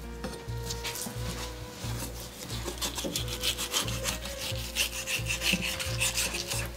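Rhythmic scraping strokes of a kitchen utensil working raw food, about three a second, growing stronger a couple of seconds in. Soft background music with a pulsing beat runs underneath.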